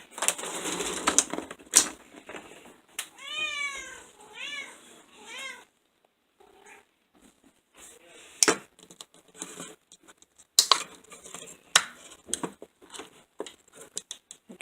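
A kitten meowing for its breakfast: about four short meows, each rising and falling in pitch, come in quick succession around three to five seconds in. Rustling comes before them, and a few sharp clicks and knocks follow later.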